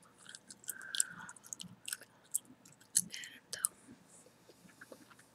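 Chewing gum close to the microphone: irregular wet clicks and smacks of the lips and gum, a few each second.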